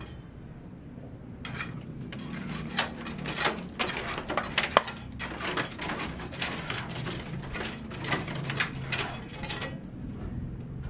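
A run of irregular clattering knocks and scrapes, like hard materials being handled, starting about a second and a half in and stopping near the end, over a steady low hum.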